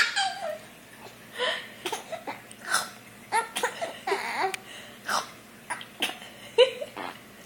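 A baby giggling and babbling in many short, high-pitched bursts.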